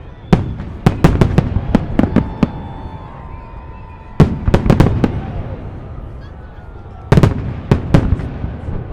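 Fireworks salute: aerial shells bursting in volleys of several sharp bangs each, about five volleys with pauses of one to three seconds, and a rolling echo between them.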